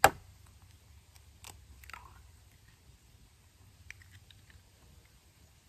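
A single sharp knock right at the start, then light taps and crackles of an egg being tapped and cracked open over a cooking pot, its shell crunching as it is pulled apart about four seconds in.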